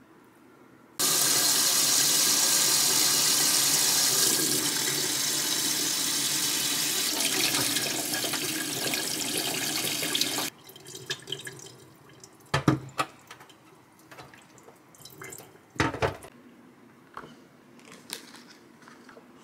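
Kitchen tap running into a stainless-steel sink for about nine seconds, then shut off abruptly. A few scattered knocks follow, the two loudest a couple of seconds and about five seconds after the water stops.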